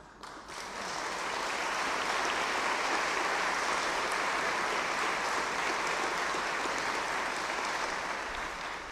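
Large audience applauding, building up within the first second, holding steady, then dying away near the end.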